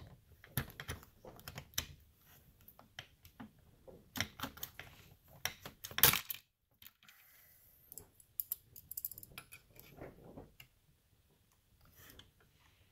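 Steel socket extension and Torx bit clicking and scraping against a chainsaw's chain brake spring and the saw's housing as the spring is forced onto its post. Irregular metallic clicks and light knocks, the sharpest about six seconds in, with more clicking later on.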